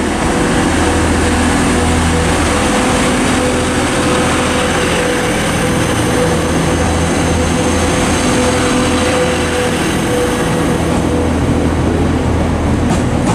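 Class 185 diesel multiple unit with its diesel engines running, a loud steady drone with a low hum and a held mid-pitched tone over train noise.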